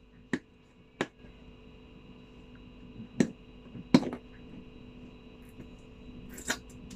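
Fingernails picking at the seal sticker on a cardboard smartphone box: a handful of sharp, separate clicks at irregular intervals, with small scratches between them.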